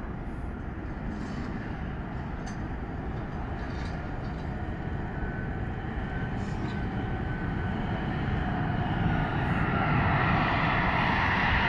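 Airbus A380 on final approach with its four Rolls-Royce Trent 900 turbofans running. It is a steady jet rumble that grows louder as the airliner comes closer, and a faint whine joins about halfway through.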